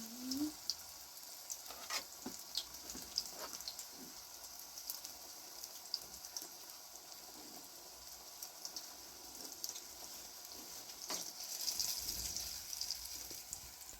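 Food sizzling in a pan: a steady hiss with many small pops and crackles, a little louder near the end.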